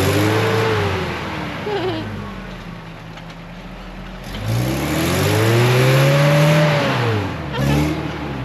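Off-road 4x4's engine revving hard in two long surges, its pitch climbing then falling each time, with a short blip of throttle near the end.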